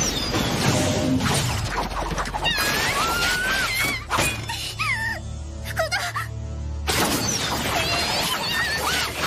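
Anime battle sound effects: loud crashing, shattering bursts about a second in, around four seconds and around seven seconds, with high gliding whistles or cries between them, over background music.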